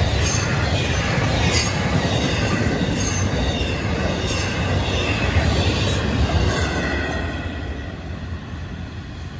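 Florida East Coast Railway intermodal freight cars rolling past on the rails: a steady heavy rumble with repeated high-pitched wheel squeals. The sound fades away near the end as the tail of the train moves off.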